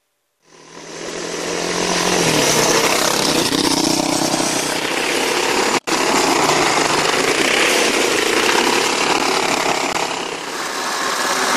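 Off-road buggy engine revving hard as the buggy drives and slides through dirt, loud and continuous. It builds up over the first couple of seconds and breaks off for an instant a little before halfway.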